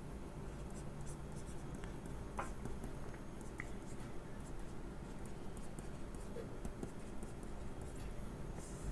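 Faint scratchy writing strokes: short light scrapes, with a couple of small ticks, over a low steady hum.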